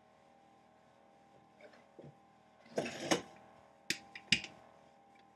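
Rolling pin working stiff, lumpy pastry dough on a counter: a short rolling noise about three seconds in, then two sharp knocks, over a faint steady hum.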